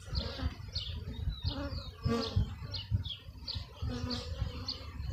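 A small bird chirping over and over, short down-slurred notes about two or three a second. Underneath are low knocks from handling a plastic bee package cage and hive frames, and honeybees buzzing briefly now and then.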